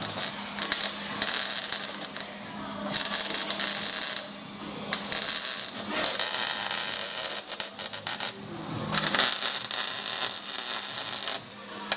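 Arc welder crackling in short bursts of about a second each, with brief pauses between welds, over a steady low hum, as steel is welded on the car's frame.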